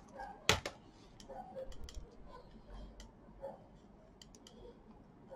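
Plastic clicks and snaps from an HP laptop's plastic case as its retaining clips are pried apart by hand: a sharp snap about half a second in, then a smaller one right after, followed by scattered lighter clicks and handling knocks of the case.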